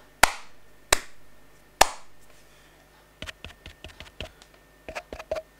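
Hand claps: three sharp claps in the first two seconds, each followed by a short ring of room reverb, loud enough to peak the camera's level meter. From about three seconds in comes a quicker run of fainter clicks and taps.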